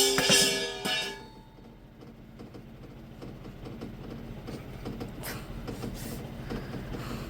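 A metal bowl dropped on a hard floor, clattering and ringing as it bounces a couple more times and settles within about a second. Then the room goes quiet, with two faint knocks about five and six seconds in.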